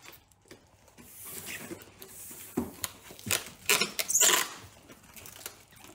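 Packing tape being pulled off the roll in several short pulls and pressed onto a cardboard box, with rustling and light taps; the longest, loudest pull comes about four seconds in.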